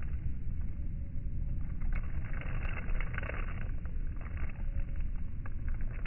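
Steady low rumble of wind on the microphone, with light spring rain pattering and a few faint ticks.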